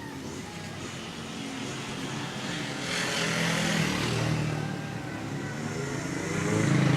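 A motor vehicle engine running close by, with a rush of noise that swells about three seconds in and eases off again.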